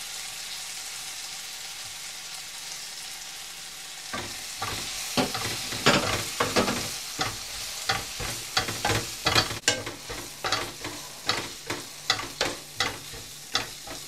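Onion, garlic and curry leaves sizzling steadily in a non-stick frying pan. About four seconds in, a wooden spatula starts stirring the mixture, scraping the pan in quick repeated strokes about twice a second.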